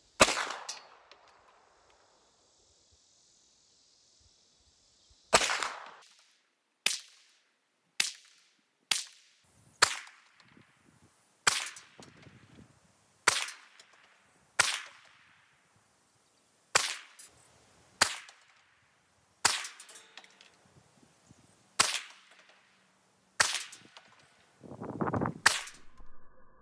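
Hi-Point 995TS 9mm semi-automatic carbine fired in slow, deliberate single shots, about fifteen sharp cracks each with a short echo tail. One shot comes at the start, then after a pause of about five seconds the rest follow roughly every one to two seconds.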